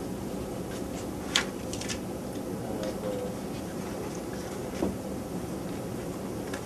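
A few sharp clicks from laptop keys and touchpad buttons being pressed, over a steady room hum, with a duller knock nearly five seconds in.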